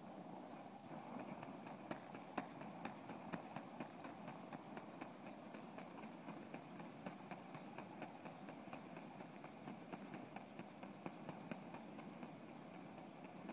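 Burning steel wool whirled in circles: a faint steady rushing with many small, irregular crackles and clicks.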